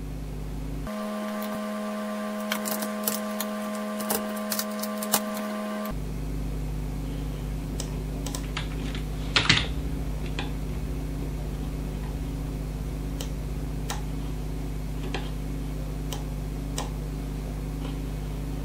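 Computer keyboard keys tapped in short runs and mouse button clicks, a few scattered clicks with a louder cluster about halfway through, over a steady low electrical hum.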